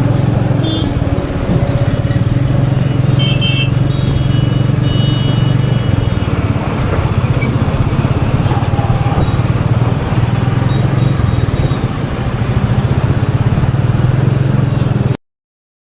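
Royal Enfield Meteor 350's single-cylinder engine running while the bike is ridden at easy city speeds, with a few brief high-pitched tones from traffic. The sound cuts off suddenly near the end.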